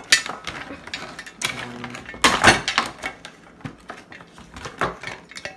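Clicking and metal clatter from a folding trenching shovel handled on a table, its blade hinge and threaded locking collar being worked by hand, with a louder burst of clatter a little over two seconds in.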